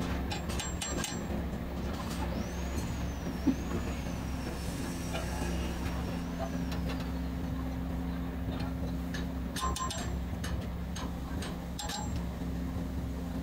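Steady low hum of a running engine or machine, with hammer blows on a metal radiator part: a few sharp knocks near the start and again around ten and twelve seconds in, as the metal is pounded flat.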